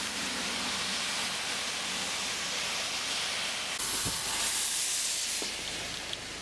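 Steady hiss of rain on a wet street. About four seconds in, a car drives past on the wet road, its tyres hissing louder through the spray, then fading away.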